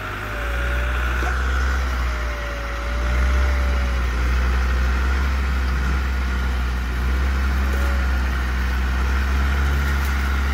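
Off-road 4x4's engine running steadily at low revs, a little louder about a second in and again near three seconds, with a faint wavering whine above it.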